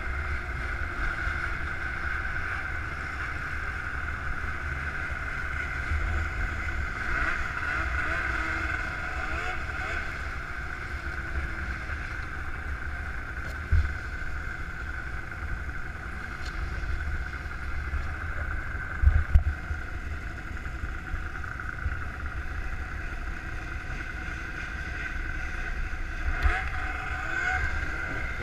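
Snowmobile engines idling steadily, with a sharp low thump about halfway in and two more a few seconds later.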